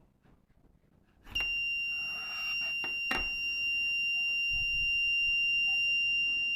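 An electronic buzzer in a BC547 transistor circuit sounding one steady high-pitched tone. It switches on with a click about a second in and holds until it cuts off suddenly, with another click partway through.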